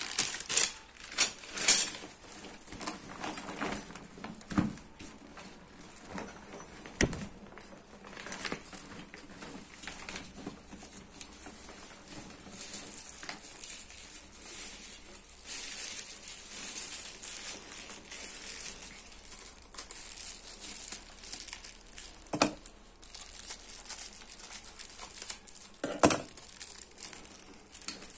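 Plastic packaging and a foil-lined insulated delivery backpack crinkling and rustling as they are handled and unfolded, with a few sharp knocks, the loudest near the end.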